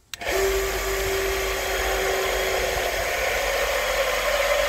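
Electric surface water pump switching on suddenly and running with a steady whirring hum, a steady tone in it fading after about three seconds. It stops at the end. It is being test-run after an air leak at its inlet connector was sealed with a rubber washer.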